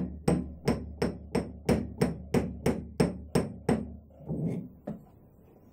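A flat iron plate tapped rapidly and evenly against a microwave-oven transformer's laminated iron core, about three sharp ringing metallic clinks a second. The tapping stops about four seconds in, followed by a couple of softer knocks.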